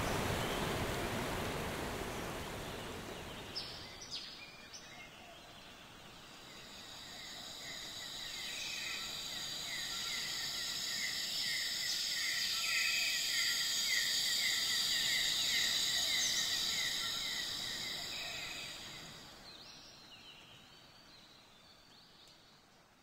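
Outdoor nature ambience: a rushing water sound that fades out over the first few seconds, then a high, steady chirring with a rapid run of chirps that swells up and fades away near the end.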